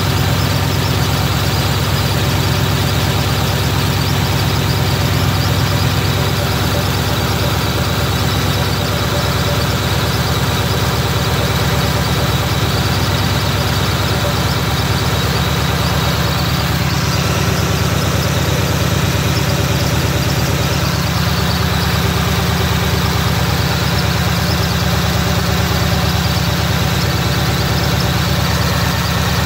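1936 Ford 21-stud flathead V8 idling steadily.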